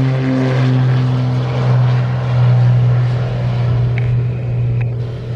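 Propeller airplane's engines droning steadily at a low, even pitch, with two short clicks near the end.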